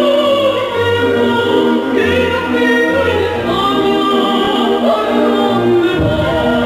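Concert wind band playing: saxophones, clarinets and brass hold sustained chords over a tuba bass line, and the low end fills out about six seconds in.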